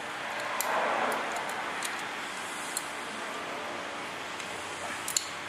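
Steady road-traffic noise that swells briefly about a second in, with a few faint short clicks.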